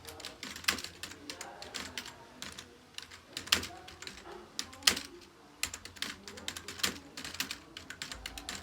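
Typing on a computer keyboard: a quick, uneven run of key clicks, with a few louder keystrokes scattered through it.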